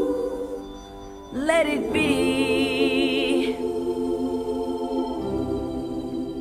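Gospel-style music: a sustained organ chord with singing, one voice swooping up and then holding a high wavering note, before the music slowly fades.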